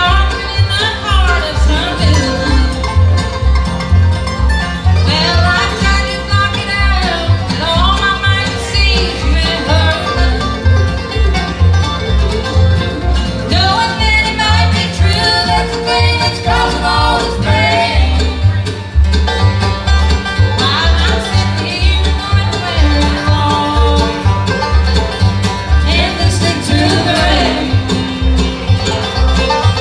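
Bluegrass band playing a song, with banjo and guitar picking over a steady bass pulse and a fiddle carrying sliding melody lines.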